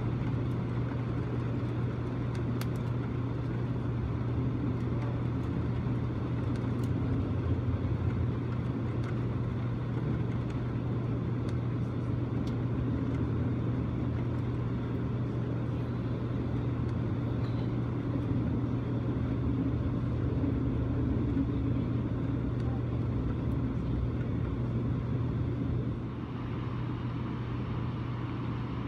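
Steady rumble and low hum of a passenger train in motion, heard from inside its dome car as it runs alongside a container freight train, with a few faint clicks. The level drops a little near the end.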